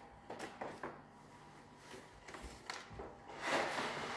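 Cardboard toy-car box being handled: a few light taps and clicks, then a louder rustling scrape near the end as it is set down and slid across a wooden table.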